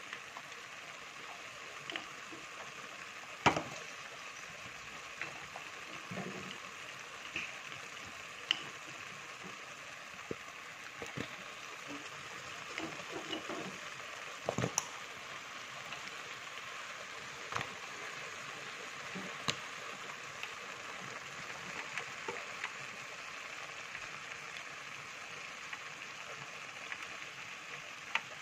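A pot of potato-leaf stew with chicken boiling: a steady hiss of bubbling with scattered pops and clicks. The loudest sound is a single sharp knock about three and a half seconds in.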